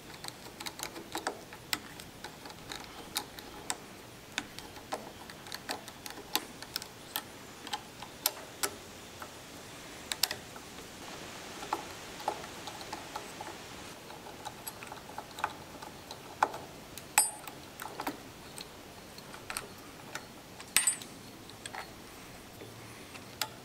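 Small irregular metallic clicks and ticks of a screwdriver working the terminal screws of a mill motor's forward/reverse switch, with wire lugs clinking as the incoming power leads are disconnected.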